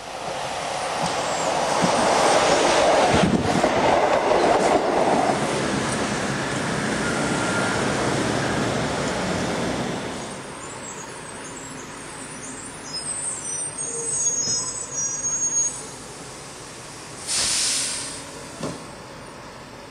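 Vintage electric tram running on its track: loud running noise for about ten seconds, then quieter, with high squealing from the wheels about twelve to sixteen seconds in and a short hiss near the end.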